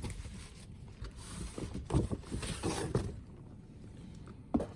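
Gift boxes and a paper bag being handled: soft rustling and a few light knocks, with a sharper knock near the end.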